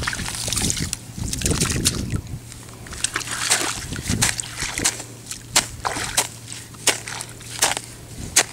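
A hoe chopping and scraping through loose earth: a few scraping swishes at first, then sharp strikes of the blade into the soil about once a second.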